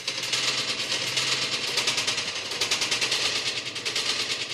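A fast, even rattle of sharp clicks, loud and unbroken, fading out near the end.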